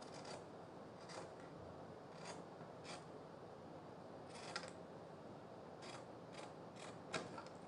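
Tailor's scissors snipping through two layers of folded print fabric while trimming out a cut piece: faint, short snips at uneven intervals, roughly one a second, with a quick run of snips near the end.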